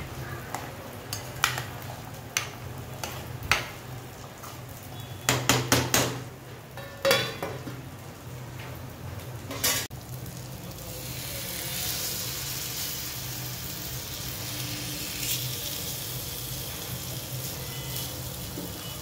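A metal spoon clinks against a pot several times while a thick curry masala is stirred. About ten seconds in, this gives way to a steady sizzle of rava-coated black pomfret (halwa) pieces shallow-frying in hot oil in a pan.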